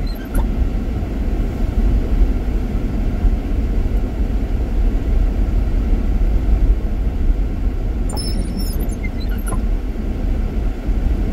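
Steady low rumble of a car driving over a snow-covered road, its tyres running in snow ruts, heard from inside the cabin, with a few faint clicks late on.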